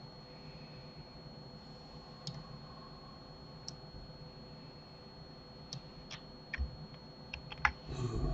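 Computer mouse and keyboard clicks: a few scattered clicks at first, then several in quick succession near the end, over a faint steady electrical hum.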